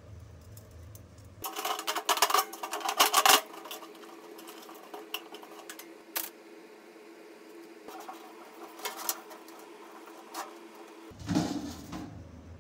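Thin stainless-steel tube and sheet-metal tin clattering and clinking as the tube's cut tabs are worked into a hole in the tin's lid: a quick run of metal rattles and knocks, then scattered single taps and another short clatter near the end, over a steady hum.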